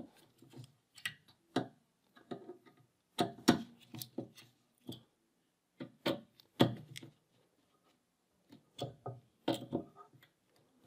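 Hex driver turning in the socket-head bolts of an aluminium focuser bracket as they are tightened down: irregular metallic clicks, ticks and small knocks from the tool seating and turning and from handling the bracket, with a short pause about two-thirds of the way through.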